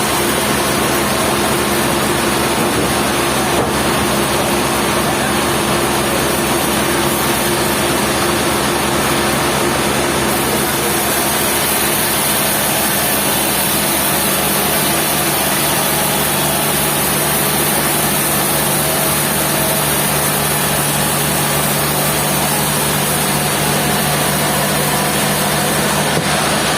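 Sawmill machinery running steadily: a continuous mechanical din with constant low hums, and a high hiss that gets stronger about ten seconds in.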